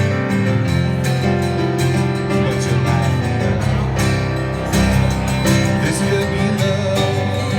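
A live band playing, with guitars to the fore and a steady beat.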